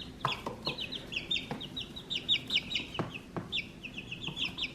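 Several young chicks peeping in a steady stream of short, high, down-sliding chirps, with a few light taps among them.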